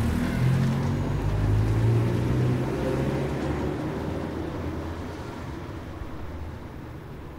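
A car driving past and away. Its engine note rises slightly over the first couple of seconds, then the sound fades steadily as the car recedes.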